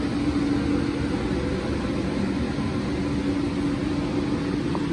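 Mine ventilation fan running steadily: a constant low hum over a rush of air as it forces about 3,700 CFM of fresh air into the mine through flexible ducting.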